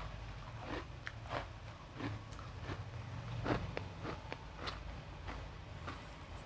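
Refrozen crushed ice being bitten and chewed close to the microphone: irregular sharp crunches, the loudest about halfway through.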